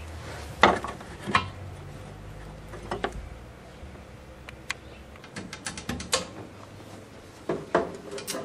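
Scattered metal clicks and knocks of screws and mounting hardware being handled and fitted at a picture tube's corner mounting bracket, with a quick run of light ticks past the middle.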